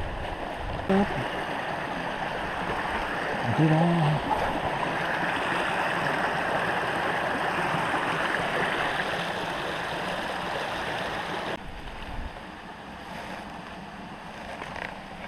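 Creek water rushing over rocks, a steady hiss of flowing water that drops suddenly to a quieter level a little before the end.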